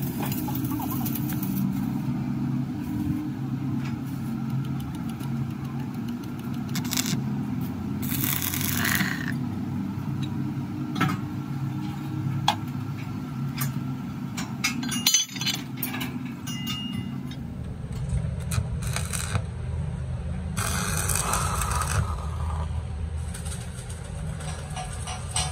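Intermittent metal clinks, taps and scrapes as a steel tube is fitted into the hole of a steel plate on an anvil, over a steady low engine hum.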